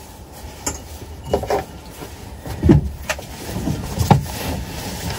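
Utility vehicle's engine idling with a steady low rumble, with several scattered knocks and clunks, the loudest a little past the middle.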